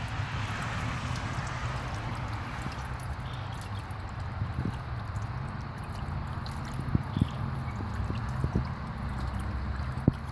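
Water trickling and splashing from a small homemade fountain, with a steady low hum underneath and a few faint clicks.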